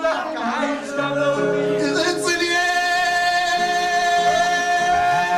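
Eritrean pop song played by a band, with a male voice singing; a long held note comes in about two seconds in.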